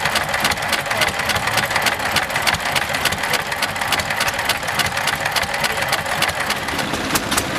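Massey-Harris stationary engine running, with a rapid, even ticking.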